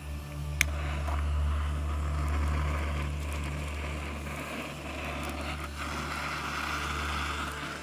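Butane blowtorch on a gas cartridge: the igniter clicks once about half a second in, then the flame hisses steadily.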